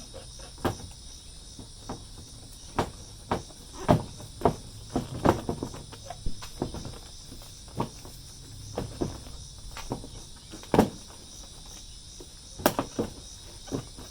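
Irregular plastic clicks and knocks as a Kia Sportage headlight assembly is worked and pulled out of its mounting by hand, with crickets chirping steadily in the background.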